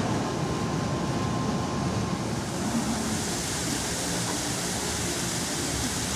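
Steady rushing of water from an artificial stream and waterfall, growing brighter and hissier about two and a half seconds in, over a low rumble with a faint steady hum early on.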